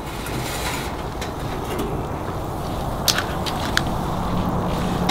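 Oysters in their half shells sizzling and bubbling on a grill rack over charcoal, with two sharp clicks of the metal rack being handled about three seconds in and just before four. A low steady hum comes in near the end.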